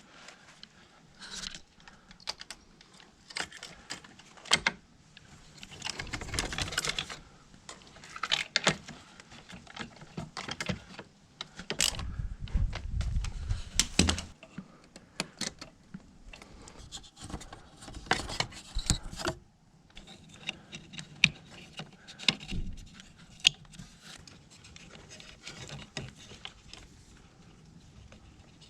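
Irregular clicks, rattles and knocks of hand tools and metal and plastic parts being handled while a car seatbelt buckle assembly is removed and refitted to a seat.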